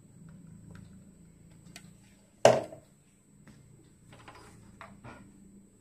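Beaten egg and sugar poured from a mixer-grinder jar into a stainless steel bowl, mostly faint over a low hum, with a few small clicks and one sharp knock with a short ring about halfway through.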